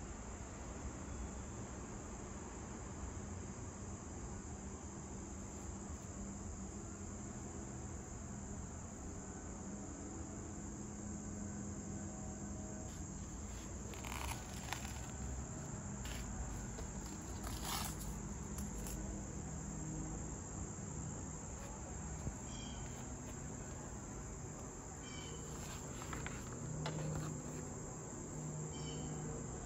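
Crickets trilling in a steady, continuous high-pitched drone, with a couple of brief noises about halfway through.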